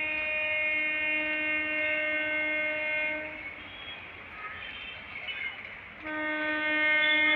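Horn of an old-model MEMU electric train sounding: one long steady blast that stops about three seconds in, then, after a gap of softer rail noise, a second long blast that begins about six seconds in.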